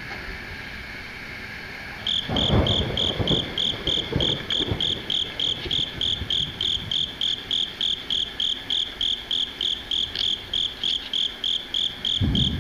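An insect chirping steadily in a high, even pulse, about three chirps a second, starting abruptly about two seconds in. Low thumps and rustles come through a few times early on and again near the end.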